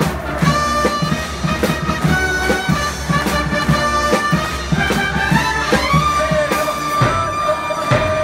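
Brass band playing a cheering tune, trumpets holding melody notes over a steady bass drum beat.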